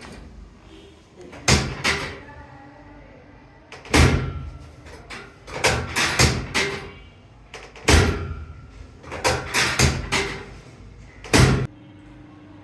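About a dozen sharp thumps and cracks in quick clusters from chiropractic adjustment thrusts, the body pressed hard against the treatment table. A low steady hum begins near the end.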